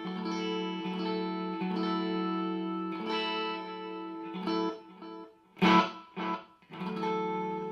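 Clean electric guitar chords ringing out through a tape-style delay whose level is turned all the way down, so little echo follows the notes. Near the middle come two short, loud noisy hits, then a chord rings out again near the end.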